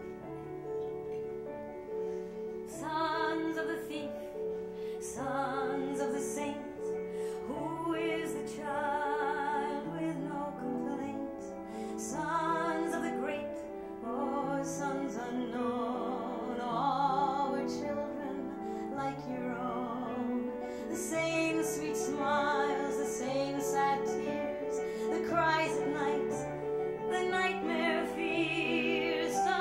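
A woman singing with a wide vibrato over sustained instrumental accompaniment; the accompaniment plays alone for the first few seconds before the voice comes in.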